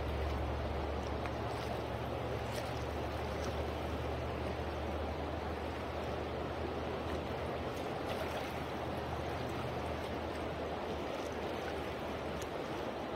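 Steady rushing of river current flowing past, with a few faint ticks.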